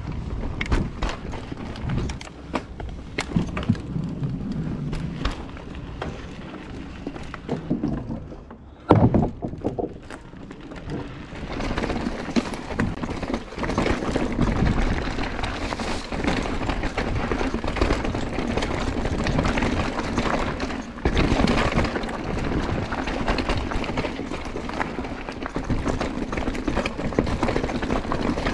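Mountain bike ridden over rocky, rooty singletrack: tyres crunching over dirt and dry leaves, with repeated knocks and rattles from the bike over rocks and roots, and one hard thud about nine seconds in. From about twelve seconds in, a steadier rush of tyre and wind noise.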